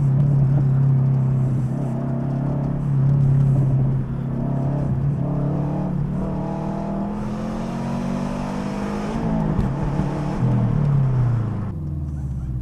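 Subaru turbocharged flat-four running loud through a split, unrestricted exhaust with a catless up-pipe. It holds a steady drone for a few seconds, then revs up with a rising pitch, and falls away near the end.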